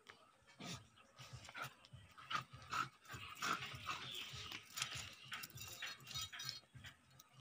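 Small dog whimpering in a run of short high whines, with panting, as it is held and rubbed down.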